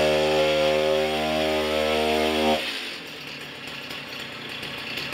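Gasoline chainsaw running at high, steady revs, its exhaust smoking. About two and a half seconds in, the engine note cuts off suddenly, leaving a fainter rasping noise that tails away.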